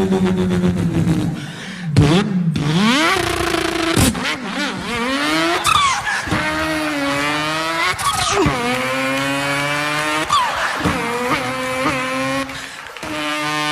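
A person's voice imitating a racing car: a buzzing engine note that climbs in pitch and drops again several times, like a car accelerating through gear changes, with a brief gap about two seconds in.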